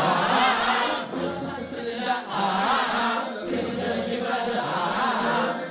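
Several voices singing together into microphones over a karaoke backing track, the sung lines wavering in pitch.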